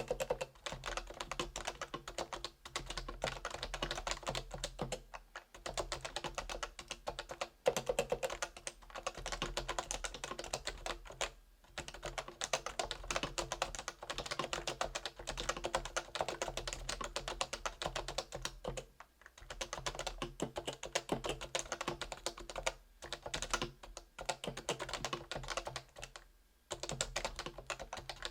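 Realforce R2 keyboard with stock 45 g Topre electrostatic capacitive switches being typed on quickly, in runs of continuous keystrokes broken by brief pauses every few seconds.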